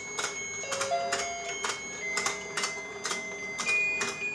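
Battery-powered rotating fishing game toy running: its plastic mechanism clicks about two to three times a second as the pond turns, over a thin electronic beeping tune from the toy.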